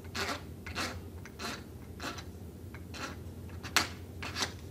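A scraper drawn again and again across a hard-fill grater, scraping off the hard fill the grater picked up while levelling a dent. The strokes are short and scratchy, about seven of them, roughly one every two-thirds of a second.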